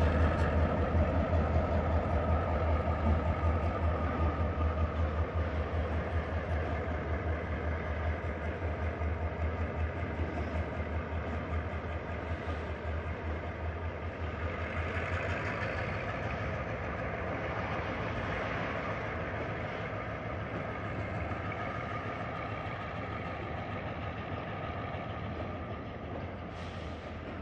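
Freight train passing: two diesel-electric locomotives running past and moving away, their low engine hum fading, then the freight wagons rolling by on the rails. The engine hum drops off about halfway through, leaving the rolling sound of the wagons.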